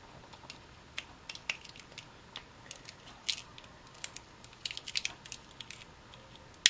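Irregular small clicks and crinkles of a 9-volt battery's thin steel casing and insulation paper being pried and bent apart.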